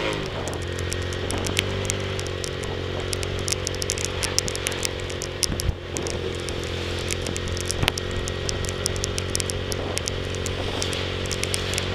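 Tormax 150 motorcycle engine running under way, its note dropping at the start and then holding steady. Rain drops tick sharply and often against the camera throughout.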